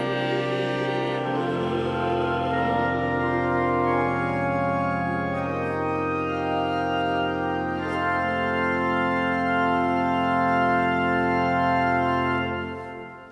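Church organ playing sustained chords, with a deep bass note coming in about a second and a half in. The music ends near the end, and the last chord dies away in the church's reverberation.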